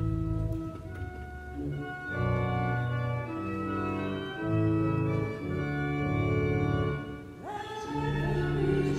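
Church organ playing a hymn introduction in held chords that change every half second or so. The congregation's voices come in singing about seven and a half seconds in.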